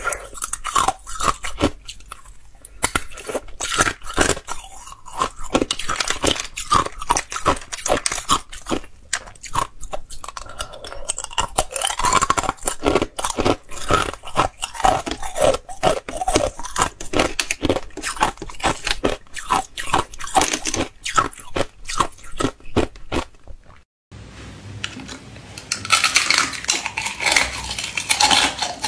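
Close-up crunching of clear ice being bitten and chewed: a rapid, irregular run of sharp cracks and snaps. About 24 s in it breaks off for a moment and resumes as thin ice shell being bitten, with a hissier, grittier crunch.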